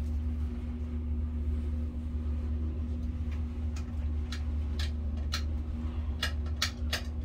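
A steady low hum throughout, joined from about three seconds in by a string of sharp clicks, roughly two a second.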